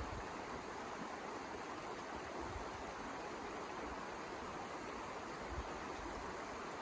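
Steady rushing noise of blizzard wind, with a few brief low buffets on the microphone.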